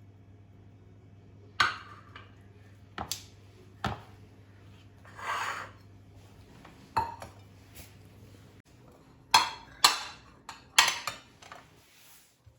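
Dishes and cutlery being handled in a kitchen: a string of sharp clinks and knocks, several of them close together about nine to eleven seconds in, with a softer, longer noise about five seconds in.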